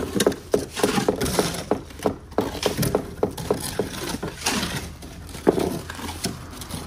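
Shovels scraping and dumping wet concrete into a wooden countertop form, an irregular run of scrapes and knocks several times a second.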